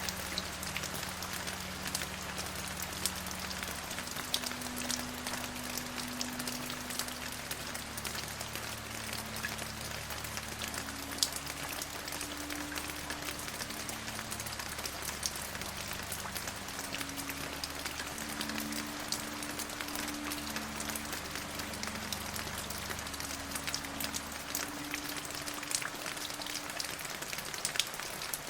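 Steady rain falling, an even hiss with many small drop ticks scattered through it. Faint low held tones sit underneath, changing pitch every few seconds.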